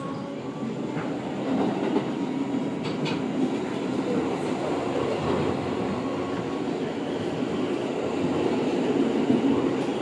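R160 subway car running at speed, heard from inside the car: a steady noise of wheels on the rails, growing slightly louder. A sharp click comes about a second in and another about three seconds in.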